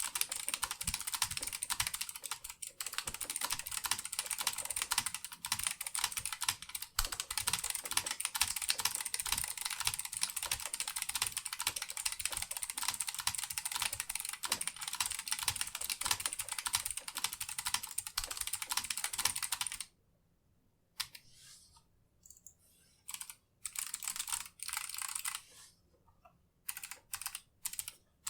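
Fast continuous typing on a Vortex Race 3 mechanical keyboard with clicky Kailh Box Pink switches, an aluminum case, a steel plate and PBT DSA keycaps. About two-thirds of the way through, the rapid typing stops and gives way to scattered single keystrokes and short bursts with near-quiet gaps between them.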